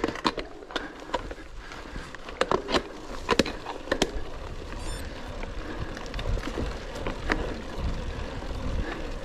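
Rockrider XC900 mountain bike ridden over a rough forest trail: irregular sharp clacks and rattles of the bike over bumps, thickest a few seconds in, over a low tyre and wind rumble that builds in the second half.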